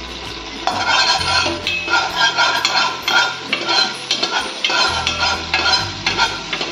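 Mustard seeds spluttering and crackling in hot oil inside a pressure cooker, with a metal spoon stirring and scraping against the pot. The crackling starts under a second in.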